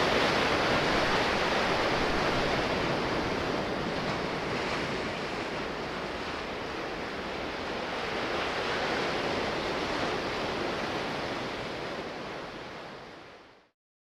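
Sea waves washing in a steady rush that slowly swells and eases, fading out near the end.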